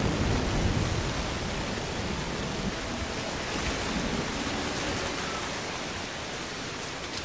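Heavy rain falling: a dense, even hiss that slowly gets quieter.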